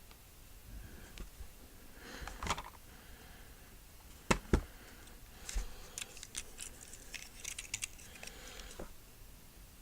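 Light clicking and rattling of small hard objects being handled, with two sharp clicks close together about four and a half seconds in and a run of small rattling clicks after them.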